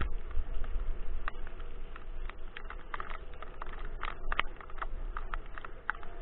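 Dog scooter rolling fast over a leaf-strewn path, pulled by two harnessed dogs: a steady low rumble with scattered sharp clicks and rattles.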